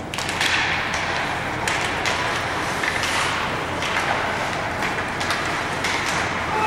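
Ice hockey game sounds: skates scraping the ice and short knocks of sticks and puck over steady arena noise.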